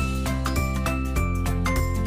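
Background music with a steady beat and a bright melody of short notes.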